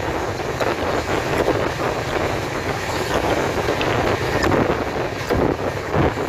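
Passenger train running at speed, heard from inside the coach: a steady rumble of wheels on rails with short irregular knocks and wind buffeting the microphone.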